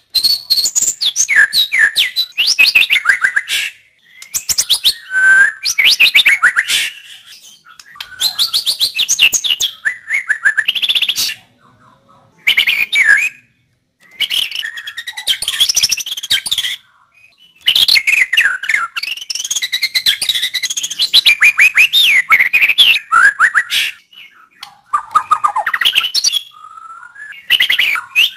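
White-rumped shama (murai batu) singing loudly in a string of phrases a few seconds long, each a rapid run of whistles and chattering notes, separated by short pauses.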